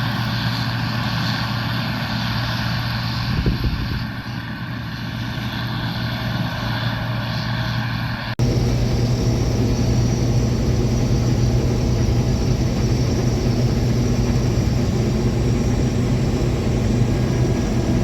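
Combine harvester running steadily, a continuous machine drone. About eight seconds in, the sound cuts abruptly to a louder, deeper drone.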